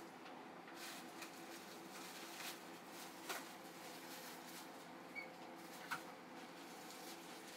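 Quiet room tone: a faint steady hum with a few soft, scattered clicks and taps.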